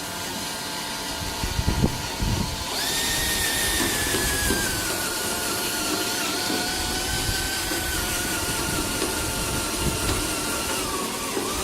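Cordless power drill running and drilling through metal, with a few knocks about two seconds in. The motor whine steps up in pitch about three seconds in, then slowly drops as it works under load.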